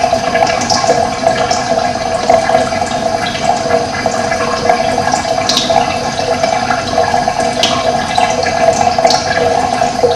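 Steady running water, with a few short, high bird chirps scattered through.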